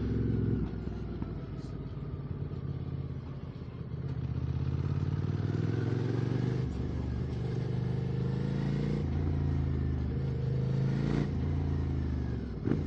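Motorcycle engine running through an Arrow Racetech slip-on exhaust while riding. Its pitch rises and steps down several times as the bike accelerates and changes gear.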